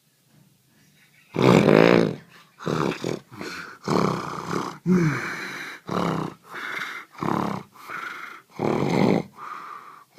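A person snoring loudly, with rasping, throaty snorts in quick succession, about one a second, starting about a second and a half in.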